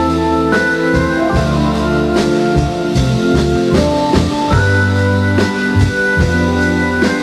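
Rock music with drums, bass and guitar, instrumental between sung verses.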